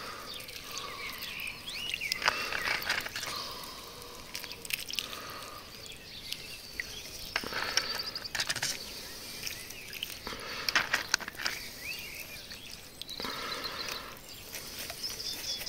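Water poured from a small plastic cup onto a pot's gravel substrate, trickling in several short pours, with birds chirping faintly in the background.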